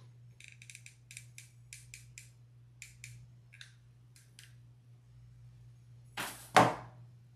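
Light, irregular clicking and crackling from handling a plastic craft eye and hot glue gun while gluing the eye on, with a short, louder rustle and knock about six seconds in.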